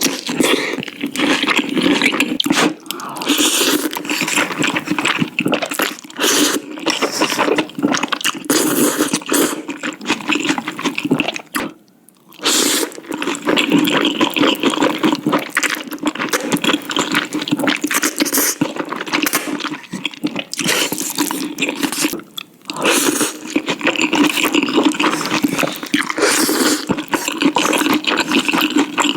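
Close-miked eating sounds of a person slurping and chewing noodles, wet and continuous, broken by two short pauses.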